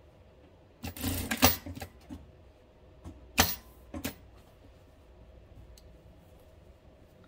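Sewing machine running in a short burst of about a second, stitching through the elastic waistband at the end of the seam where it is backstitched. A couple of sharp clicks follow a few seconds in.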